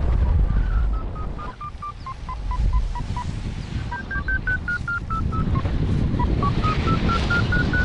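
Paragliding variometer beeping about four times a second, its pitch stepping down, breaking off briefly, then starting higher and sliding down before climbing again. This is the climb tone: the pitch follows how strongly the glider is rising in lift. Wind rushes over the microphone underneath.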